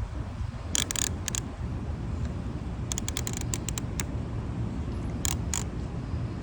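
Light clicks and rattles of plastic toy pieces being handled, coming in several short bunches over a steady low rumble.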